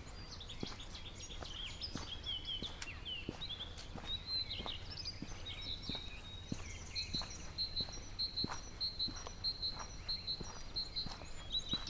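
Footsteps crunching steadily along a dirt and gravel track, roughly one every 0.7 seconds, with small songbirds singing over them: varied chirps and trills, then from about halfway a single high note repeated about three times a second.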